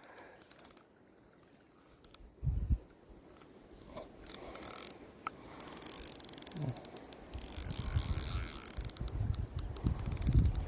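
Fishing reel clicking and ratcheting fast while a hooked fish is played on a loose drag. The clicking starts briefly, then runs on steadily from about four seconds in, with low bumps of handling underneath.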